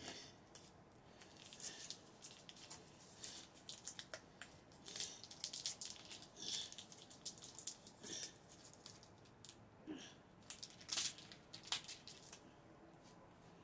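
Foil wrapper of a block of cream cheese crinkling and rustling in the fingers as it is worked at by hand to tear it open, in short irregular crackles, with two louder crackles near the end.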